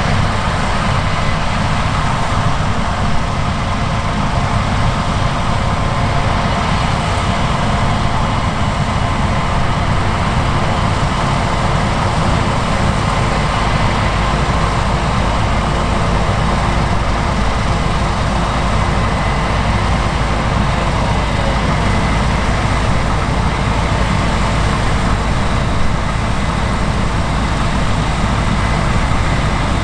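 Steady, unbroken running of heavy diesel farm machinery at work, with a few held tones over a constant mechanical noise.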